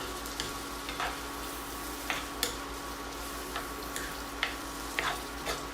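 Green peas and onion sizzling in oil and butter in a frying pan, with a utensil scraping and knocking against the pan about once a second as they are stirred.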